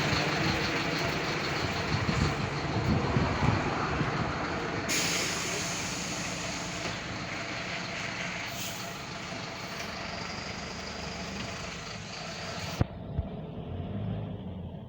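Mercedes-Benz OF-1519 city bus with a steady air hiss over the engine running, briefly brighter about five seconds in. The hiss cuts off sharply with a click near the end, leaving the engine's low idle.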